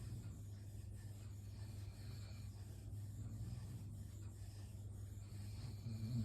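Soft, raspy snoring with slow breaths, swelling louder about three seconds in and again near the end.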